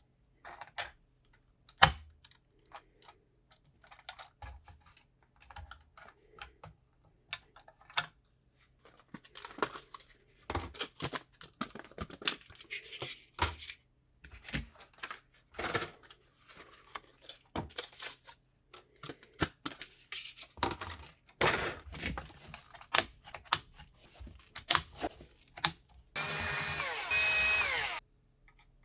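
Hands handling computer parts and their packaging: irregular plastic clicks and knocks with rustling of packaging, busier from about a third of the way in. Near the end comes a loud two-second burst of noise with falling squeaky tones.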